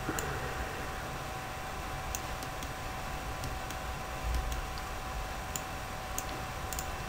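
Several separate, sharp clicks of a computer mouse's buttons, spaced irregularly, over a steady background hiss and a faint constant tone.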